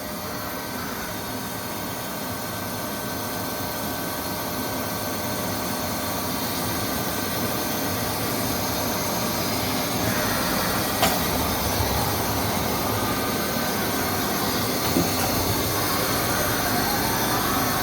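2001 Mazak Integrex 100-IISY 5-axis CNC turning and milling center running a milling and slotting cut. The steady machining noise grows slowly louder, with a few faint clicks, over the drone of a noisy air compressor.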